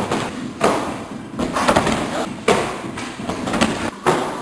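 A run of thuds and slaps, about five in all, as gymnasts land on crash mats and plant their hands on a wooden vaulting box. Each one echoes round a large sports hall.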